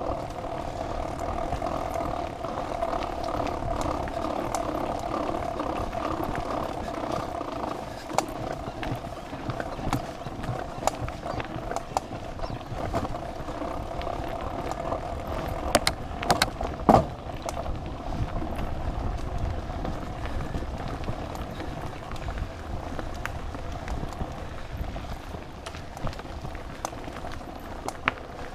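Mountain bike riding along a dirt forest trail: continuous rolling and rattling of tyres and frame, with a steady hum over the first half that fades away, and a few sharp knocks from the bike jolting over bumps about two-thirds of the way through.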